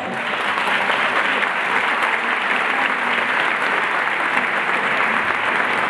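Theatre audience applauding, an even, unbroken round of clapping at a steady level.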